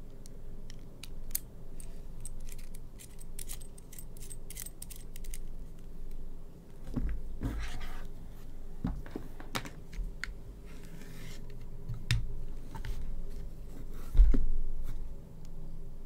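Handling noise of a coiled keyboard cable with a metal aviator connector: many quick, light metallic clicks as the connector halves are fitted and screwed together. Then the coiled cable rubs and knocks on the desk mat, with a louder thump near the end.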